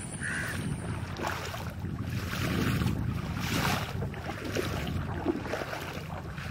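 Outdoor wind noise buffeting the microphone: an uneven low rumble with rushing noise that swells a few times. A short chirp comes near the start.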